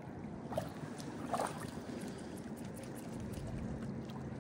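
Faint, steady outdoor rumble of wind and river water, with two short faint ticks about half a second and a second and a half in.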